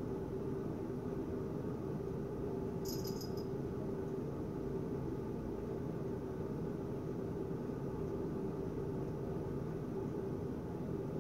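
Steady low background hum with a faint steady tone in it, and a brief high-pitched chirp about three seconds in.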